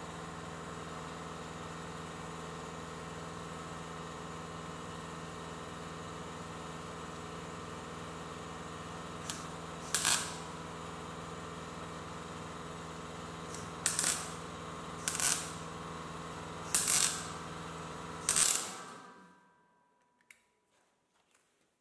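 MIG welder humming steadily, with five short bursts of welding arc as the gun lays short welds about a second or more apart. The hum stops and fades out near the end.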